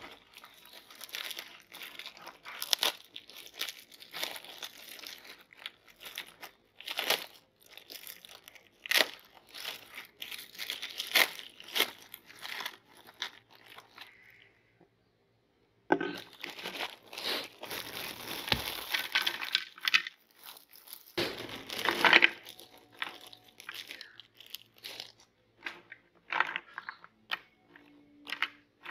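Plastic food wrapping crinkling and tearing as wrapped packs of bread are handled and opened, in irregular crackling bursts. About halfway through the sound drops out completely for a second or two, and near the end there are only sparse, quieter clicks and rustles.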